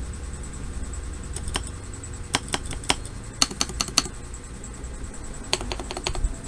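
Keystrokes on a GMK67 mechanical keyboard, typed as a sound test after a tape mod: scattered clacks starting about a second and a half in, a short pause, then more keystrokes near the end.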